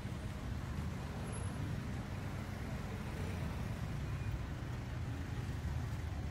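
Street traffic ambience: a steady low rumble of passing and idling vehicles.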